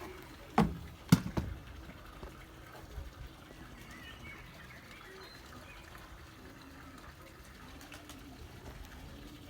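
Domestic pigeons cooing softly, with two sharp knocks about half a second and a second in.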